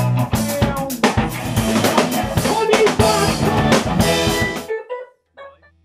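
Music with a drum kit playing a steady beat, cutting off suddenly near the end.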